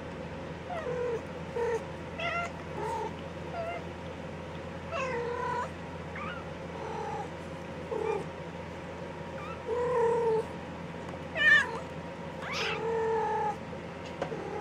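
Maine Coon cats mewing: about a dozen short calls spread out, some with a wavering or gliding pitch, the loudest about eleven and a half seconds in.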